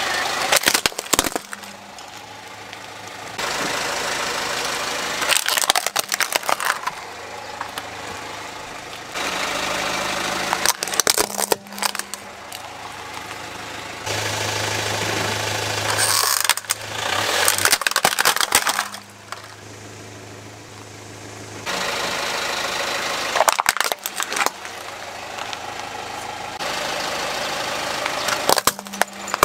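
Car engine idling as the car creeps forward. Its tyre crushes hard plastic toys with loud cracks and crunches, several times over, between stretches of steady engine running.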